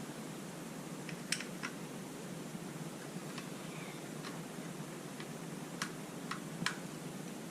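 Light, irregular clicks and taps of small parts being handled while a plastic drone body is taken apart, about nine in all, the sharpest about a second in and near the end, over a steady background hiss.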